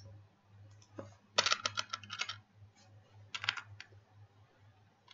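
Typing on a computer keyboard: a quick run of keystrokes about a second and a half in, then a shorter run a little past three seconds, over a faint low hum.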